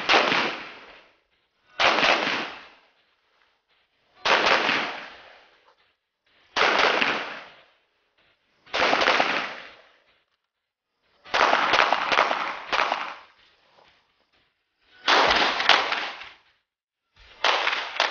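Gunshots from rifle and pistol fired on an outdoor range, mostly single shots about every two seconds. A quick string of three or four comes a little past the middle and a pair later on. Each shot echoes for about a second.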